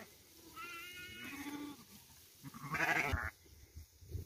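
Sheep bleating in a flock: two calls, about a second in and again near three seconds, the second louder.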